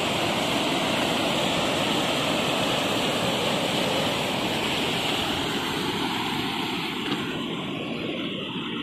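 Steady rush of river water washing against a rocky, concrete bank, easing a little near the end.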